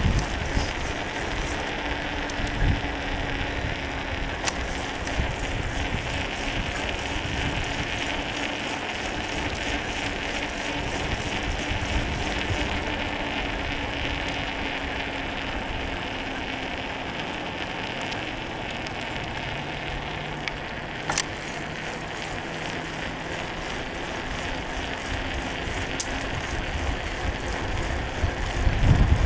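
Steady road noise of a bicycle ride on an asphalt path: tyres rolling and the bike lightly rattling, with wind rumbling on the microphone in uneven gusts.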